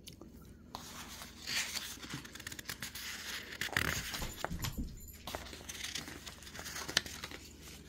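Sheets of lined notebook paper rustling and crinkling as they are handled and shuffled to the next page, with one sharp click about seven seconds in.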